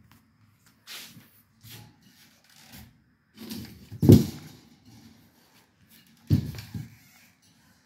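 Handling noise from a metal high-velocity floor fan being gripped and shifted: a series of knocks and rattles from its wire grille and frame. The loudest knock comes a little past the middle, and another short cluster comes near the end.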